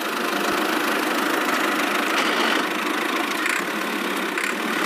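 Miniature toy tractor running steadily, a continuous engine-like hum with no breaks.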